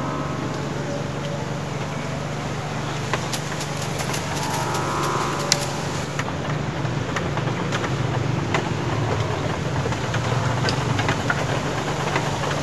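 A steady low motor hum, like an engine idling, with a short pitched call about five seconds in.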